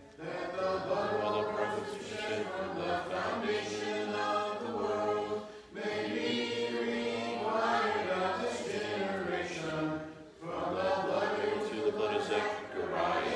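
A class of children's voices reciting a Bible verse together in unison, in a chant-like cadence, in three phrases with two short pauses.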